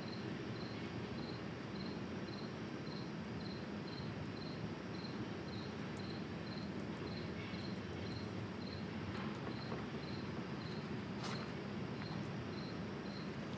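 Evening outdoor ambience: an insect, typical of a cricket, chirps a short high note about twice a second over a steady low background hum, with one sharp click about eleven seconds in.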